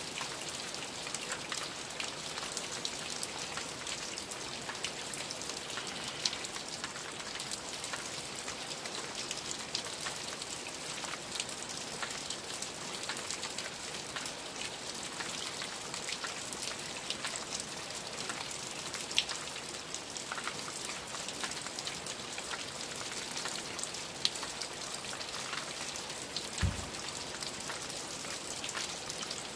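Steady rain falling, with many small drop ticks scattered through it. A single low thump sounds near the end.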